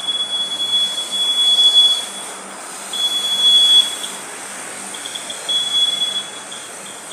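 Max-speed warning buzzer on a homemade Arduino self-balancing scooter sounding one steady high tone in three long beeps of about one to two seconds each. The beeps are its signal that the scooter has reached its speed limit.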